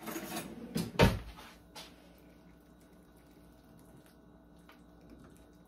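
Kitchen handling noises: a few knocks and clatter in the first couple of seconds, the loudest a dull thump about a second in, then faint clicks of a knife and fork against a glass plate as a portion of baked pasta is cut.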